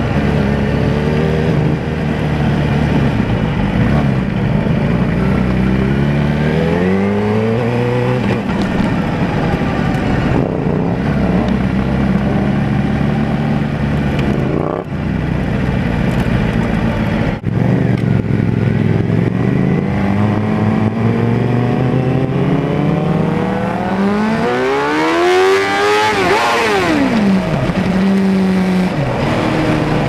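Suzuki GSX-R750 inline-four engine running under way, its note rising and falling with throttle and gear changes, with brief dips in level around the middle. Near the end a louder engine note climbs in pitch and then drops sharply.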